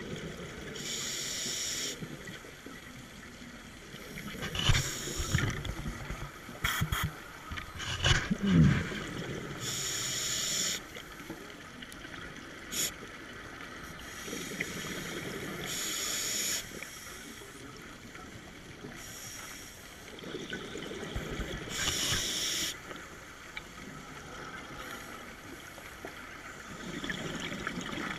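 Scuba diver breathing through a regulator underwater: a slow inhale, then a hissing burst of exhaled bubbles, repeating about every five to six seconds. A few sharp knocks and clunks come a few seconds in.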